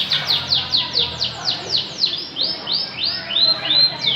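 Canary singing: a rapid series of repeated whistled notes, most sweeping downward at about four a second. Around two seconds in it shifts to a few rising notes that level off, then goes back to falling notes near the end.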